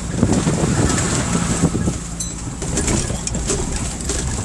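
Four-wheel-drive engine running in first gear as the vehicle crawls over a rough, muddy track, with irregular knocks and crunching from the tyres and body.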